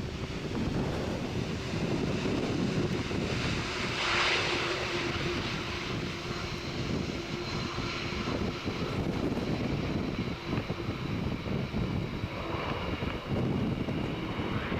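Boeing 747-400 jet airliner landing, its engines giving a steady rumble. A faint steady hum comes in about four seconds in and holds for several seconds.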